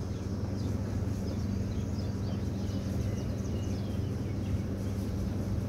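Steady low hum of outdoor background noise, with faint short bird chirps over it during the first few seconds.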